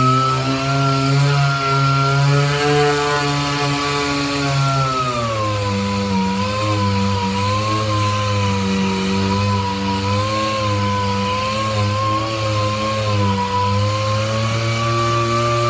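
Power sander working down a steel car quarter panel, its motor running with a steady whine. The pitch drops about five seconds in, then holds with a slight waver.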